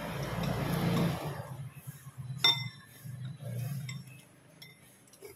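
Metal spoon and fork clinking against ceramic soup bowls while eating noodle soup. There is one sharp, ringing clink about two and a half seconds in, followed by a few lighter taps, with a brief rushing noise at the start.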